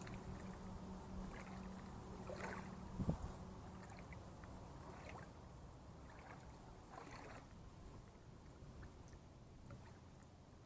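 Small waves lapping and slapping against a small model boat hull, over low wind rumble on the microphone. A faint steady hum fades after the first few seconds, and a single soft thump comes about three seconds in.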